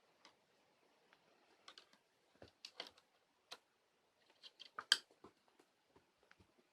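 Faint, irregular clicks and crinkly rustles, a handful spread over several seconds, the sharpest one about five seconds in.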